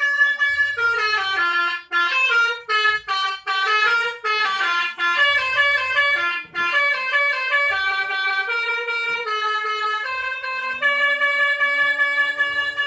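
Four-trumpet telolet bus horn playing a quick melodic run of stepping notes, phrase after phrase, with a few short breaks between phrases.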